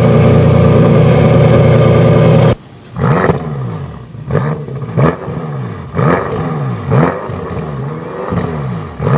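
High-performance car engine held at high revs with a steady note, which stops abruptly about two and a half seconds in. It is followed by a run of quick throttle blips, about one a second, each time the revs dropping and then climbing again.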